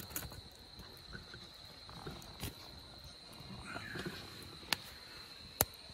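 Crickets trilling steadily in a high, continuous tone, with a few sharp snaps from a wood fire crackling.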